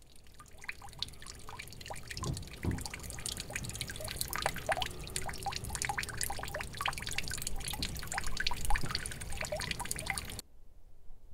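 Water trickling from the pipe spout of a stone-wall fountain and splashing into the trough, a steady patter of many small drips and splashes that cuts off suddenly near the end.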